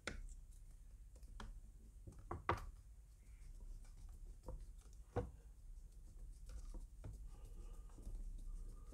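Faint scattered clicks and small knocks of a screwdriver turning a screw into a Daisy Avanti 753 air rifle's stock, with the screw being threaded in. The loudest knocks come about two and a half seconds and five seconds in.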